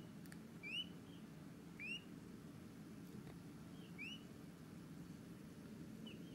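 A week-old peachick peeping: short faint peeps that rise in pitch, about one a second, then fainter after a gap near the end.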